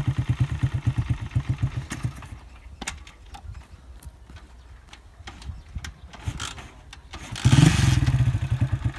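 Motorcycle engine idling with an even putter, then cutting out about two seconds in, leaving a few light clicks. About seven and a half seconds in the engine starts again and runs louder.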